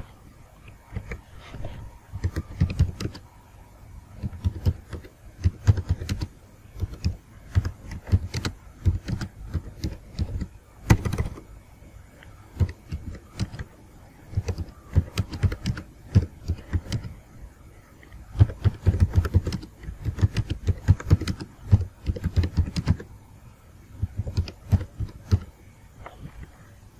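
Typing on a computer keyboard: runs of quick keystrokes with short pauses between the bursts.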